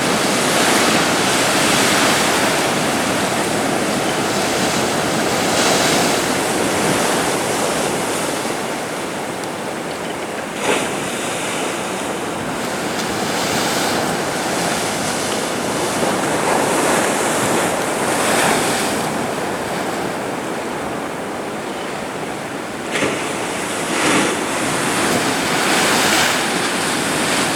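Atlantic surf breaking on a sandy beach: a continuous wash of waves that swells and fades every few seconds, with sharper crashes about ten seconds in and twice near the end.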